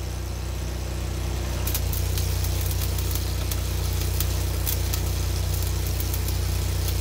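Engine of a Hobart Champion engine-driven welder running steadily, picking up slightly about two seconds in. Short sharp crackles above it come from tack welds being struck.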